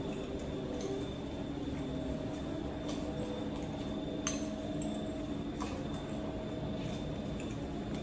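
Steady room hum with a handful of light clinks of plates and cutlery, the sharpest about four seconds in.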